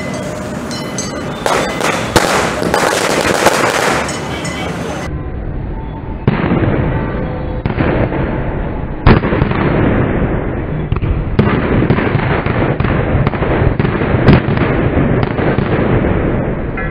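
Firecrackers bursting in quick succession: a run of sharp cracks with several louder single bangs among them, thickest in the second half.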